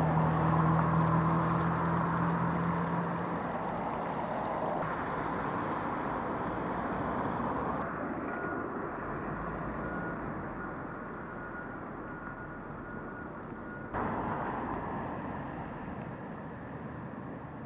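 Steady outdoor rushing noise of floodwater and road traffic, with a low engine hum over the first few seconds. The sound changes abruptly several times.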